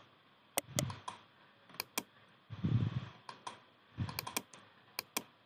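Computer keyboard and mouse clicking: about a dozen sharp, irregularly spaced clicks with a few soft low thumps among them.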